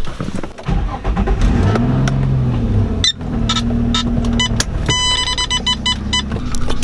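Infiniti G35 coupe's 3.5-litre V6 engine running, heard from the driver's seat, with one rev that rises and falls about two seconds in, then settles to a steady hum.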